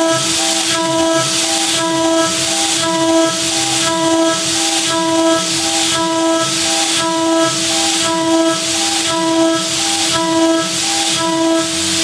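DIY CNC router milling aluminium: the spindle runs with a steady high whine while the cutter's hissing, scraping cut swells and fades about twice a second, in an even rhythm.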